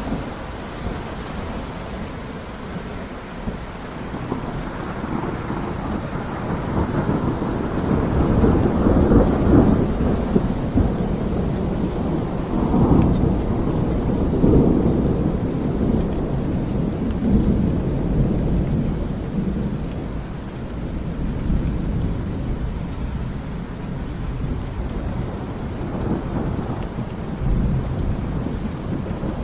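Steady rain falling, with long low rumbles of rolling thunder that swell about a third of the way in, peak again near the middle and die back.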